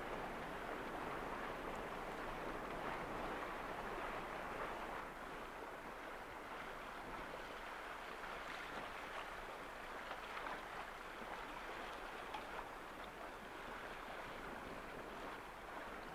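Sea water rushing and splashing along the hull of a small yacht under sail: a steady hiss.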